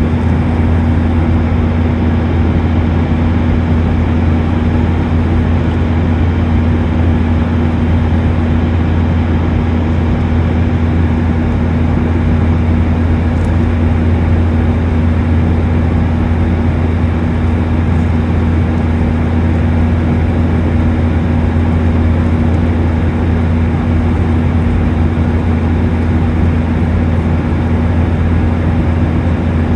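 Steady cabin drone of a Boeing 737-800 airliner in flight, heard inside the cabin: the hum of its CFM56-7B turbofan engines mixed with the rush of airflow, with a strong low hum and a steady tone a little above it.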